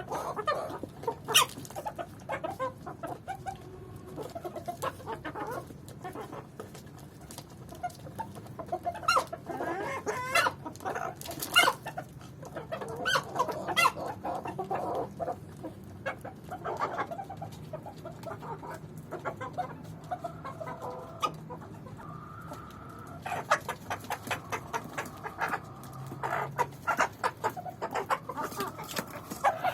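A flock of chickens clucking, with many short, sharp calls and a few longer, drawn-out calls in the second half.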